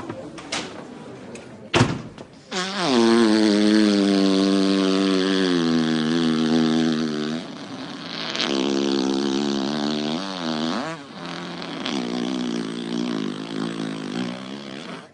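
A long, drawn-out fart in three stretches, following a sharp knock about two seconds in. The first stretch lasts about five seconds: it starts higher, drops in pitch and holds. The next two are shorter, and the first two each end with a rising squeak.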